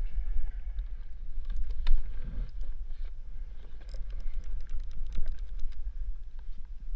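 Wind buffeting the microphone in a steady low rumble, with scattered small clicks and knocks over it.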